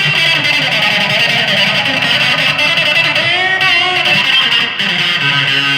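Gretsch 5435T electric guitar played through an amp: a continuous improvised run of notes and strums, with wavering pitch bends in the middle, settling on a held, ringing chord near the end.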